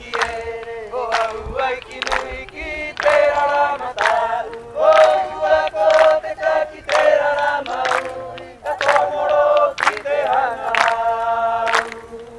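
A group of voices singing a traditional Rapa Nui chant together, unaccompanied, over a steady held note. Sharp percussive beats land roughly once a second.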